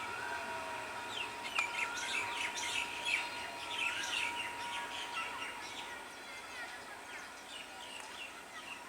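Birds chirping: a busy run of short, quick calls that thins out in the last few seconds. A faint steady whine sits under them and stops about halfway.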